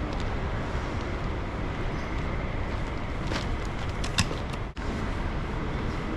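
Steady noise of a moving vehicle, with a few light clicks and a brief break a little after the middle.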